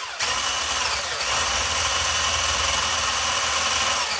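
Electric hand whisk's motor running at speed as it beats eggs in a bowl; its whine rises in pitch over about the first second, then holds steady.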